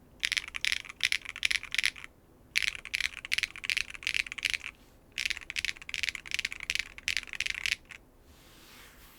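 Typing on a custom mechanical keyboard with Keygeek B1 linear switches, a carbon fiber plate, no foam and GMK keycaps: high-pitched, sharp clacky keystrokes in three quick runs with short pauses between them, stopping about eight seconds in.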